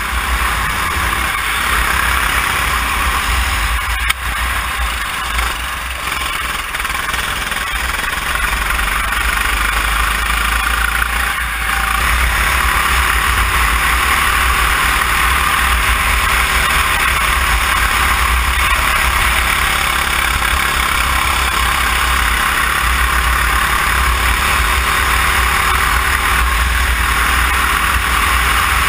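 Go-kart engine running under load at speed, heard from a camera mounted on the kart, with a dense rushing noise over a low rumble. The sound dips briefly around four seconds and again around eleven seconds in, with a short knock at the first dip, then holds steady.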